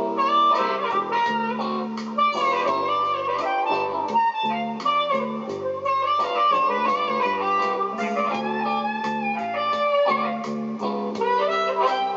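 Music played back through a TDA7297 class AB stereo amplifier kit driving cheap Sony speakers, heard in the room. The amp sounds clean and really good, with no interference.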